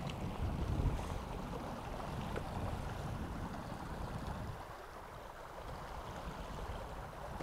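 Steady rush of river water in the shallows, with wind buffeting the microphone.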